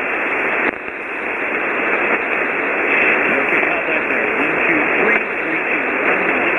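Ham radio receiver on 40-metre single sideband: steady hiss and static squeezed into the narrow voice band, with a weak voice faintly heard under the noise.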